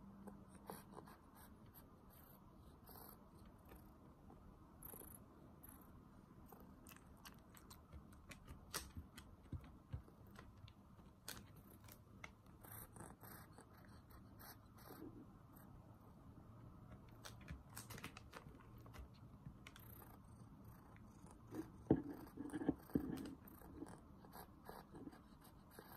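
Kitten licking at a small ceramic bowl held in a hand: faint, irregular wet mouth clicks, with a brief louder flurry a few seconds before the end.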